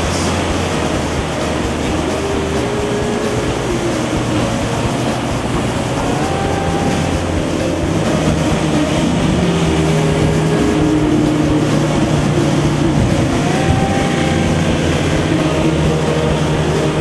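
Motorboat engine running steadily, its pitch wavering up and down.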